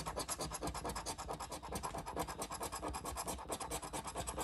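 A coin scraping the scratch-off coating from a paper lottery ticket in rapid, steady back-and-forth strokes, uncovering the play spots.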